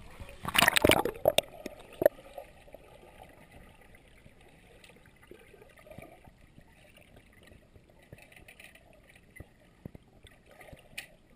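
A splash about half a second in as a shallow-water egress trainer (SWET) chair, a seat in a metal frame with a person strapped in, tips over into pool water, followed by a couple of knocks. Then faint, muffled underwater sound with scattered small clicks, heard from an underwater camera.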